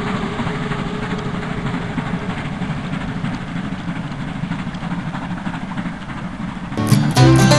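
Class 52 2-10-0 steam locomotive 52 1360 pulling a passenger train away into the distance: a steady rush of exhaust and running noise that slowly eases off. Near the end, bluegrass music with banjo and guitar cuts in.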